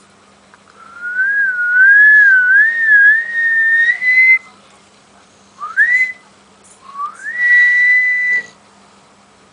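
Someone whistling in three phrases: a long wavering tune that climbs slowly, a short upward slide, then a slide up into a held note.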